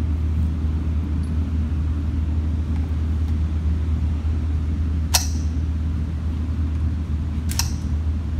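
Steady low rumble of an indoor shooting range's air handling, with two sharp cracks about two and a half seconds apart, the first about five seconds in.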